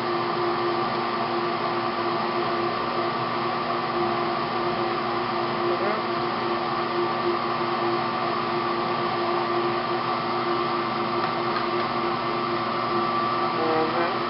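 A steady machine hum with several constant tones, unchanging throughout.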